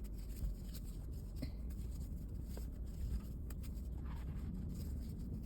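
Crochet hook and t-shirt yarn rubbing and rustling as stitches are worked, with a few faint clicks, over a steady low hum.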